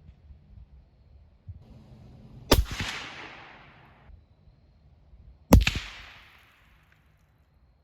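Two .223 rifle shots heard from downrange at the target, about three seconds apart. Each is a sharp crack followed by a fading echo. At this spot the bullet's supersonic crack and its impact make up most of the sound.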